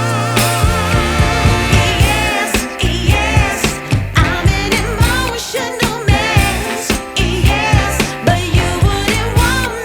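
Song playing: a singing voice with vibrato over bass and a steady beat.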